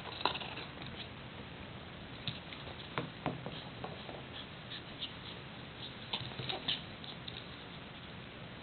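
A small dog scuffling and scratching on a rug while playing with a toy: irregular light clicks and rustles, bunched near the start and again in the middle, fewer near the end.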